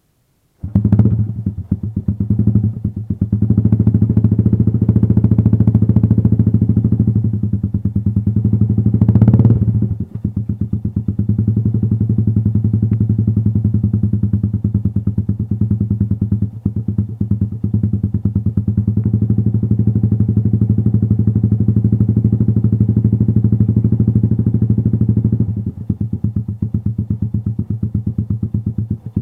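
Modenas MR1 motorcycle's carbureted engine kick-started from cold with the choke on, catching about half a second in. It runs unevenly with a few revs, the highest about nine seconds in, then settles into a steady fast idle that drops a little near the end.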